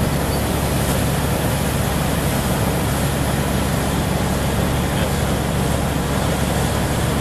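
Steady outdoor city and construction-site din: traffic and machinery running, with a low steady hum underneath and no distinct separate events.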